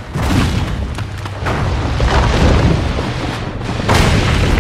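Loud cinematic rumbling and crashing sound effects: a dense, deep roar that surges about three times and cuts off abruptly at the end.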